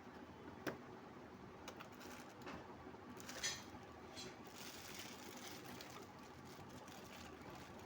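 Faint handling sounds: a few light clicks and a short rustle, as the speaker and its packaging are handled, over a quiet background hiss.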